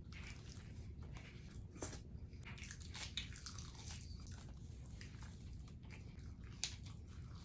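A person chewing and biting fast food close to the microphone: irregular wet mouth clicks and soft crunches, with a few sharper crunches.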